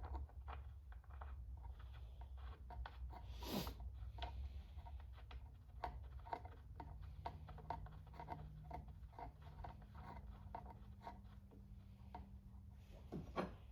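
Scattered light clicks, taps and rubbing of small parts and tools being handled while refitting a part on a chainsaw, with one sharper click a few seconds in. A low steady hum runs underneath.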